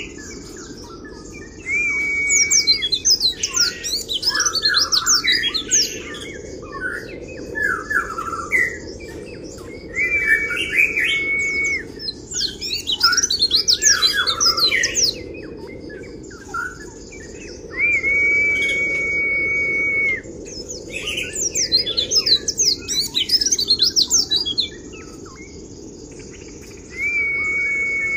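Pleci (white-eye) singing a fast, chattering 'kriwik' song in bursts. Every eight seconds or so comes a long steady high note of about two seconds, over steady low background noise.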